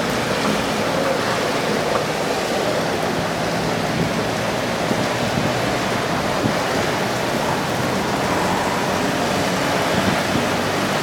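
Heavy rain pouring down on a street and pavement: a dense, steady hiss that holds level throughout.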